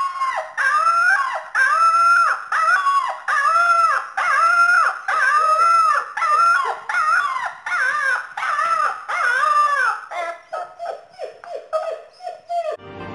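A puppy howling in high, arching yips, repeated about every half second, changing to shorter, quicker and weaker cries in the last few seconds.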